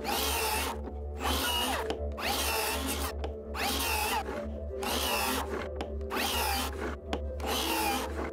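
A woodworking tool working wood in about seven rhythmic strokes, roughly one a second, each with a short gap after it. Faint background music runs underneath.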